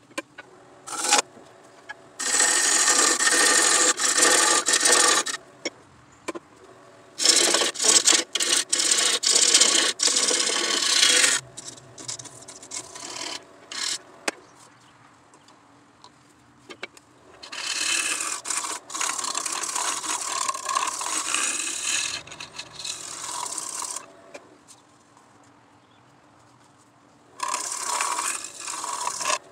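Sanding a spinning dogwood bowl on a lathe: abrasive rubbing on the wood in four passes of a few seconds each, with quiet pauses between them.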